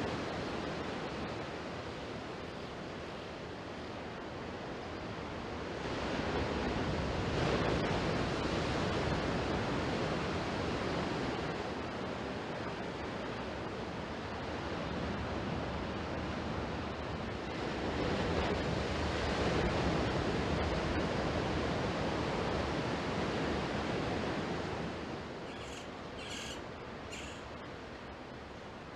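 Ocean surf washing in steadily, swelling louder twice as waves break and fall back. Three short high chirps sound near the end.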